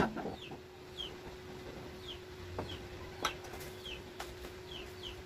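A bird peeping over and over, short falling chirps about every half second, over a steady low hum. A sharp knock right at the start and a few lighter clinks later come from glass sauce bottles being handled and set on a shelf.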